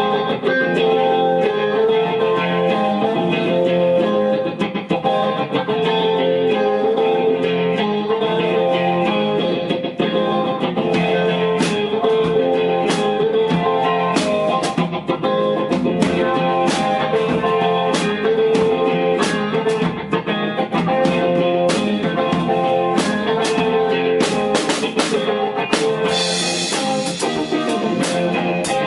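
Live instrumental music led by guitar playing a steady pattern, with sharp percussion hits coming in about eleven seconds in and continuing.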